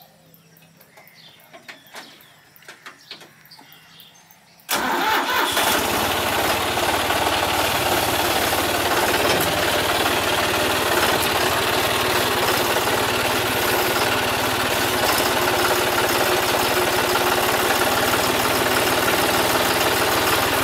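John Deere 5210 tractor's diesel engine starting suddenly about five seconds in, after a few faint knocks, then running steadily and loudly while it powers the loader's hydraulics to raise the arm.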